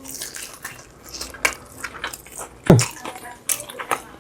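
Close-up wet eating sounds: sauce-coated chicken being bitten and chewed, with many small smacks and squelches. A brief low murmur comes about two-thirds of the way in.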